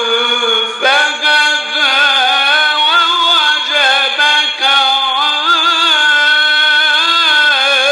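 A male Quran reciter chanting solo, unaccompanied, in the ornate mujawwad style. He draws out long, wavering melismatic notes, breaking off briefly about a second in before starting a new phrase.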